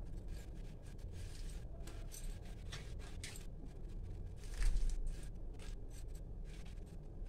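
Thin curry gravy bubbling in a steel kadhai over a gas burner: a low steady rumble under many small pops and clicks of bursting bubbles. A soft low thump comes a little past halfway as a kofta is pushed down into the gravy by hand.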